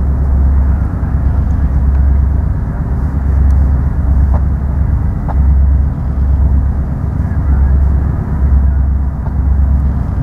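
Four EMD SD40-2 diesel-electric locomotives, each with a 16-cylinder two-stroke engine, working under load as they start a freight train moving, with a deep rumble that swells and fades every second or so.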